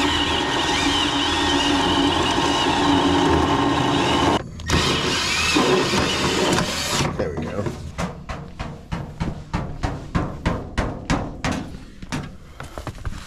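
Cordless portable band saw cutting through an old line, running steadily with a high whine, pausing briefly about four seconds in and stopping about seven seconds in. A quick series of sharp knocks and clatters follows, fading toward the end.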